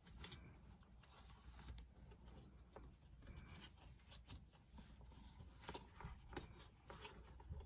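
Faint rustling and scattered small clicks from hands handling sun visor parts inside a car cabin.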